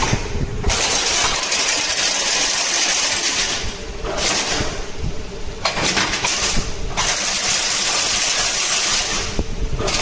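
Semi-automatic chain-link fence machine running as it weaves steel wire into diamond mesh: a steady mechanical clatter, with a loud hiss that cuts in and out every few seconds.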